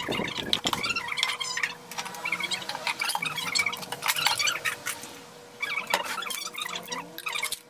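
Small birds chirping and twittering on and off, mixed with light knocks and clicks from a plywood box and its flap being handled.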